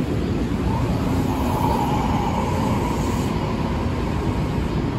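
Ex-Tokyo Metro 6000 series electric commuter train rolling slowly past along the platform: a steady low rumble of wheels and running gear, with a faint whine rising out of it from about a second in until about three seconds in.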